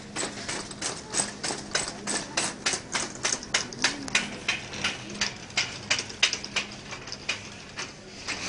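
Shopping cart rolling fast over a tiled floor, its wheels and wire frame clacking in an even rhythm of about four knocks a second.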